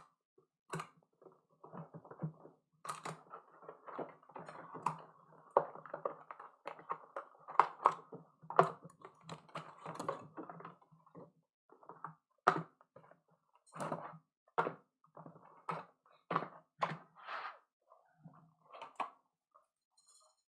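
Hands opening cardboard trading-card boxes: rustling and crinkling packaging with scattered clicks, then a run of separate taps and knocks through the second half.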